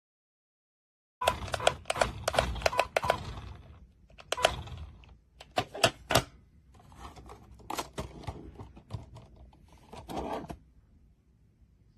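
Rapid sharp clicks and clatter of hard plastic, with quieter scattered clicks later on, from the handling of a small plastic RC toy truck and its remote control.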